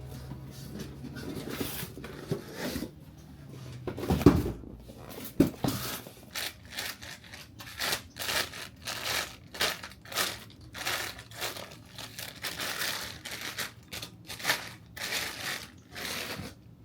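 Packaging crinkling and being torn in short, irregular bursts, about two a second, most likely the new wheel hub assembly being unwrapped. A heavy thump comes about four seconds in.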